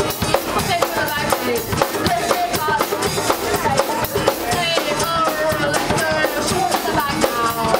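Live acoustic punk-rock band playing a fast song: quick, steady percussion and strummed hits with a wavering melody line on top.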